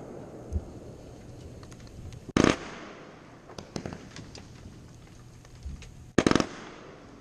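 Fireworks going off: scattered pops and crackles, with two loud volleys of rapid bangs, one about two and a half seconds in and another about six seconds in.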